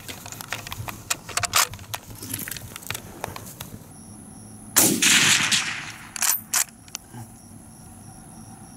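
A single rifle shot from a Schmidt-Rubin Model 1889 straight-pull rifle firing the GP90/23 cartridge, about five seconds in and the loudest sound by far. Scattered small clicks of handling come before it, and a few sharp clicks follow about a second and a half after it.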